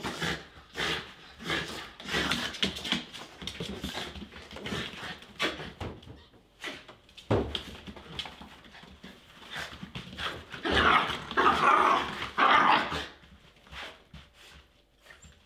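Shiba Inu dogs vocalising in quick, repeated short barks and whines, with the loudest stretch of barking coming about two-thirds of the way through before it dies down.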